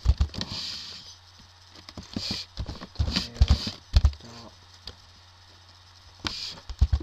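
Computer keyboard being typed on: clusters of quick key clicks at the start, in the middle and near the end, with a quiet pause between.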